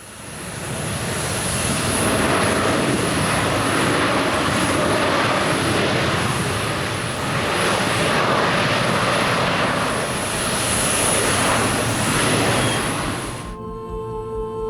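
A landing jet airliner's engines in reverse thrust: a loud, steady rushing noise with a thin high whine, fading in over the first second or two and swelling a few times. It cuts off abruptly near the end, where soft ambient music begins.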